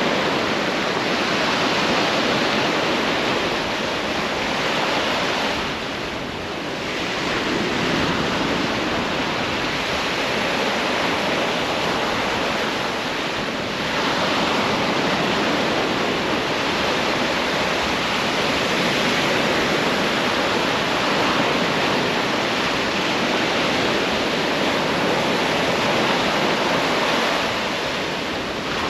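Sea surf breaking on a beach: a steady rushing wash of waves that eases briefly about six seconds in.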